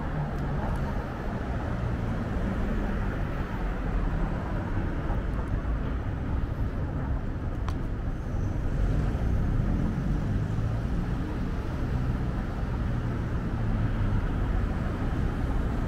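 City street ambience: a steady rumble of car traffic driving past, with engine hum low in the mix.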